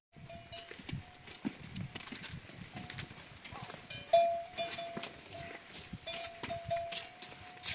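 Small neck bells on a flock of livestock ringing over and over as the animals move, with hooves clicking. The strongest bell stroke comes about four seconds in.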